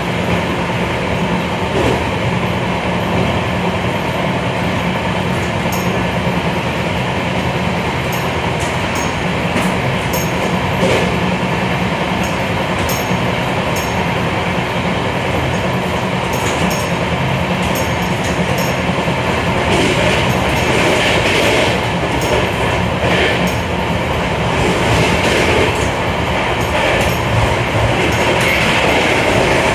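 Passenger train running along the track, heard from on board: a steady rolling rumble and hiss of wheels on rail with a few light clicks. The noise grows louder and brighter about two-thirds of the way in.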